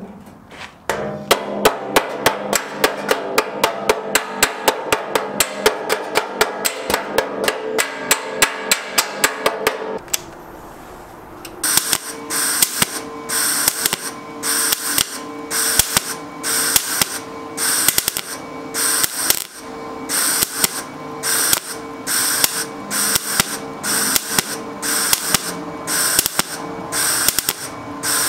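A hammer beats rapidly and steadily on the rusty sheet steel of a child's wagon bed for about ten seconds. After a brief pause, a MIG welder crackles in short bursts about once a second, laying stitch welds to build up steel across a rust hole in the bed.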